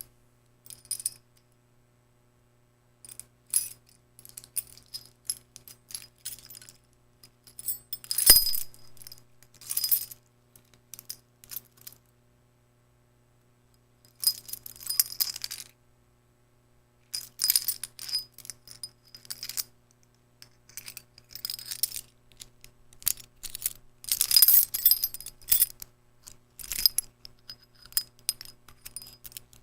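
A bunch of metal keys jingling, shaken in irregular bursts of bright clinks with short silent pauses between them. One sharp clash, about eight seconds in, is the loudest.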